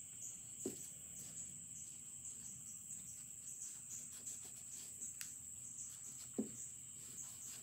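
Quiet handling of a small fiber phonograph gear as it is wiped with oil on a paper towel, with two soft knocks, one under a second in and one about six seconds in, over a steady high-pitched chirring.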